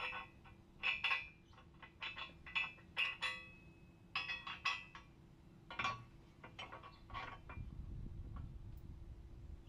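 Metal clinking and tapping as bolts and hand tools knock against a rear differential skid plate and its mounting brackets: about a dozen irregular strikes, a few ringing briefly. A low rumble comes in near the end.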